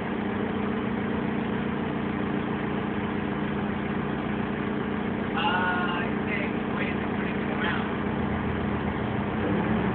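Propane-fuelled forklift engine running steadily at low revs, a steady hum. About five and a half seconds in, a brief higher-pitched sound rises over it.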